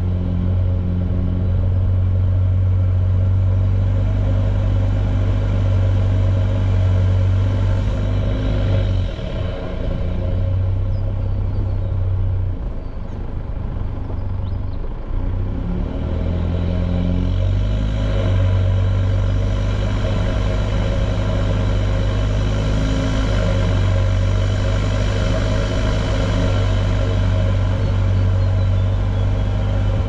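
A 4WD's engine running as the vehicle is driven slowly along a dirt bush track, with a steady low drone. The engine note drops away briefly about a third of the way in, and again for a few seconds around halfway, before it picks up.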